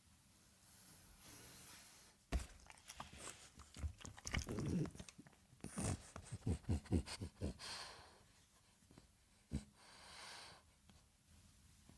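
French bulldog chewing and crunching food in bursts of sharp clicks, with a quick run of about six chews about halfway through. A couple of noisy breaths through its nose come in the second half.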